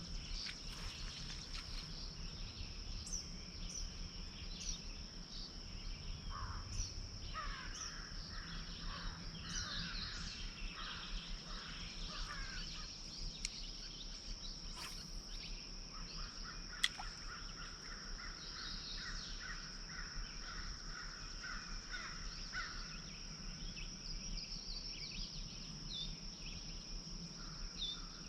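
Lakeside morning nature sounds: birds calling and chirping, with crows cawing among them, over a steady high insect drone. One sharp click stands out about seventeen seconds in.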